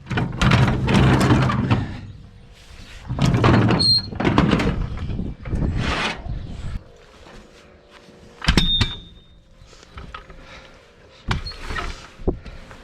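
A floor jack being dragged and lifted out of a pickup truck bed: several stretches of metal scraping and squealing, then a sharp metallic clank with a short ring about eight and a half seconds in, and a few lighter knocks near the end.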